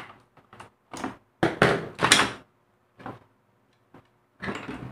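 Plastic housing of a mini sewing machine being pried apart by hand: a series of short plastic clicks, creaks and scrapes, the loudest a cluster about one and a half to two and a half seconds in, as the casing's clips give way.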